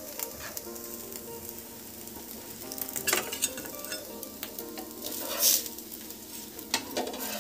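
Dosa sizzling on a hot tawa griddle, a steady frying hiss. A metal spatula scrapes under the dosa as it is lifted and folded, with the loudest scrape about five and a half seconds in.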